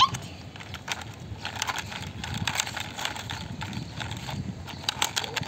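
Irregular plastic clicks and light knocks as a toy hen is handled on a concrete wall.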